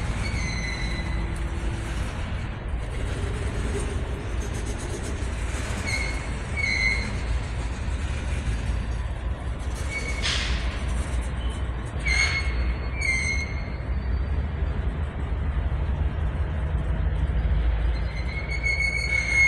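Double-stack intermodal freight cars rolling past on steel rails, with a steady low rumble of wheels and trucks. Short wheel squeals come in pairs every six seconds or so.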